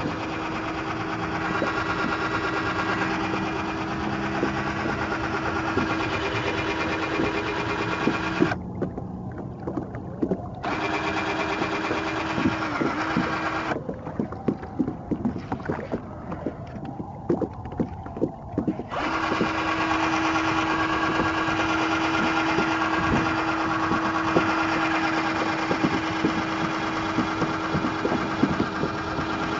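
Cordless drill driving a Drill Paddle kayak propeller: a steady motor whine at one pitch. It stops twice, for about two seconds and then for about five, and scattered knocks and clicks fill the second pause.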